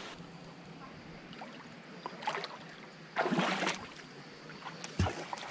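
Water sloshing and splashing at the rocky edge of a clear mountain pool, with a louder splash a little past halfway and a short sharp knock near the end.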